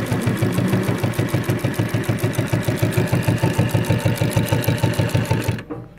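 New Tech LU1508 compound walking-foot industrial sewing machine stitching fast through layered nylon webbing. It makes a rapid, even knock with each stitch as the needle punches the webbing, and stops shortly before the end.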